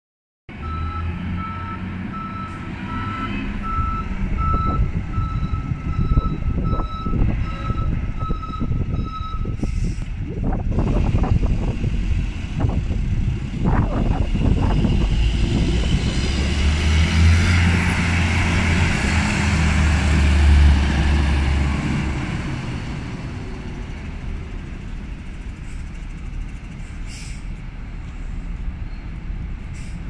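The diesel engine of a KAT 2004C 200 hp four-wheel-drive tractor running as it drives backward and forward. A reversing alarm beeps in an even rhythm for roughly the first third and then stops. The engine grows louder and deeper for several seconds past the middle, then settles back.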